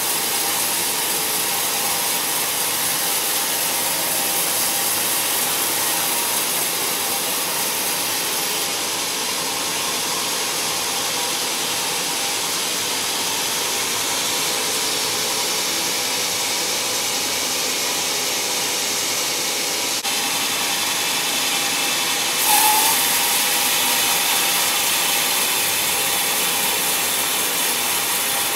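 Sawmill band saw ripping lengthwise through a thick timber beam: a steady, continuous sawing noise of the blade in the cut, with a brief louder squeak about three-quarters of the way in.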